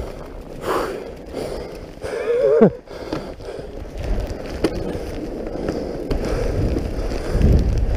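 Fatbike tyres rolling over snow, with wind on the microphone. About two and a half seconds in, a short wavering voice sound falls sharply in pitch.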